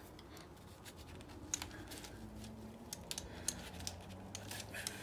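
Faint, scattered light clicks and taps as a small flex-head bit ratchet and its bits are handled and tucked into a fabric pouch.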